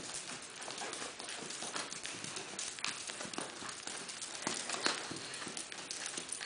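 Hoofbeats of a paint horse moving steadily around a sand-and-dirt arena footing, a continuous run of dull, uneven thuds.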